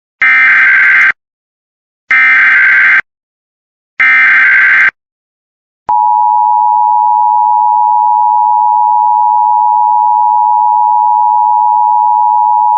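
Emergency Alert System SAME header: three screeching digital data bursts, each about a second long and two seconds apart. About six seconds in, a loud steady EAS attention tone starts and holds to the end, marking the start of a new alert.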